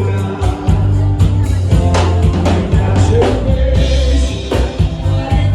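Bolero music with a singer, a steady bass line and a regular drum beat.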